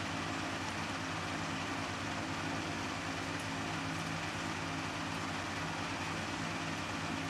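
Steady low hum with a constant hiss: a room's mechanical background noise, with no distinct events.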